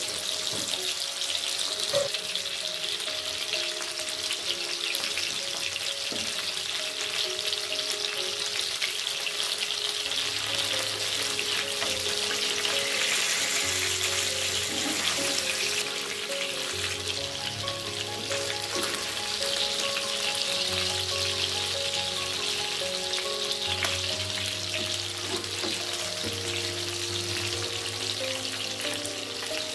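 Masala-coated fish pieces sizzling steadily as they shallow-fry in hot oil in a nonstick pan, with a few light clicks as a spatula turns them. Background music with a bass line comes in about a third of the way through.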